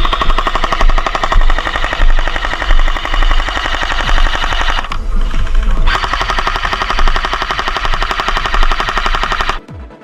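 Rapid, even rattle like automatic gunfire over electronic music with a steady deep bass. It breaks off for about a second halfway through and cuts off suddenly near the end.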